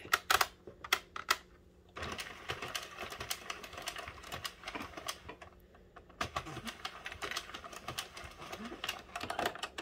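Addi circular knitting machine being hand-cranked, its plastic needles clattering rapidly as the carriage runs round the needle ring, knitting rows. A few separate clicks come first, then two stretches of steady clatter with a short pause about halfway.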